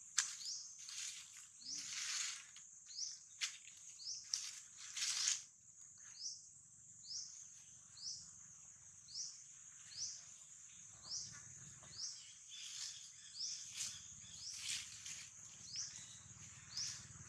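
A steady high insect buzz with a short rising chirp repeating about once a second. Dry leaf litter rustles in a few louder bursts in the first few seconds as a macaque shifts about on it.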